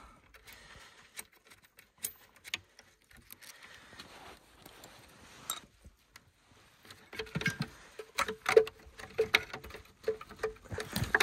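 Hand tools working small bolts on a snowmobile's ignition coil: scattered light metallic clicks and rustling, then from about seven seconds a quicker run of sharp clicks, some with a brief ring.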